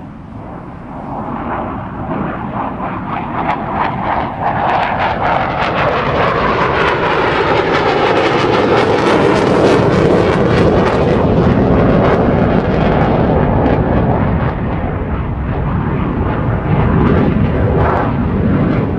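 MiG-21 fighter's turbojet engine running at high power during a flypast: a crackling jet roar that builds to its loudest about halfway through, eases, then swells again near the end.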